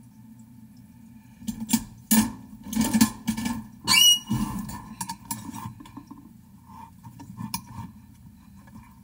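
Several sharp clicks and knocks of tools being handled on a wooden workbench, with a brief squeak about four seconds in, then softer handling as a screwdriver and the actuator's metal housing are picked up.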